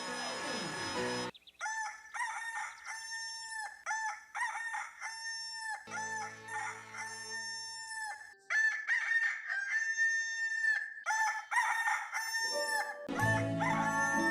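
The stock 'Farm Rooster: Single Call' sound effect: the same recorded rooster crow played again and again in quick succession, some crows cut short. Other sound comes in at the very start and near the end, and a low steady tone lies under some of the crows.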